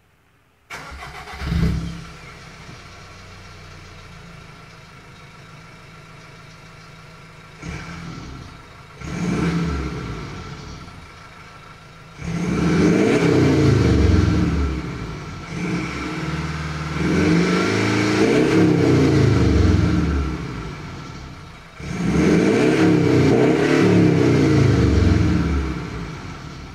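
Subaru Impreza 2.0D's turbodiesel flat-four boxer engine, breathing through a Remus aftermarket exhaust, starting with a brief flare and settling to idle. It is then blipped twice and revved three times, each rev rising and falling over a few seconds, before dropping back to idle near the end.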